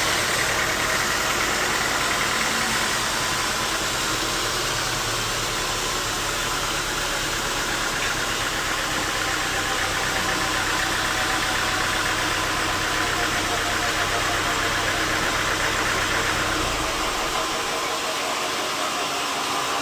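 An engine running steadily with a broad mechanical noise over a low hum; the low hum drops away about three-quarters of the way through while the noise carries on.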